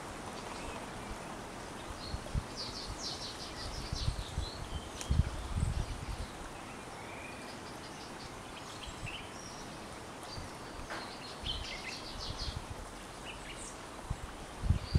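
Forest ambience: a steady low hiss, with short runs of high, rapid chirping calls about three seconds in and again late on. A few low rumbling bumps come around the middle.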